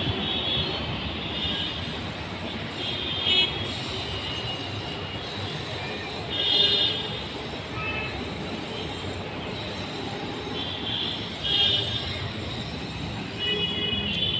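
Steady outdoor urban background noise, with several short high-pitched squeals breaking through every few seconds.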